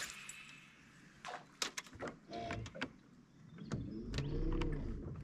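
Electric trolling motor whirring briefly, rising and then falling in pitch, about four seconds in. Scattered clicks and knocks of handling on the boat run through it.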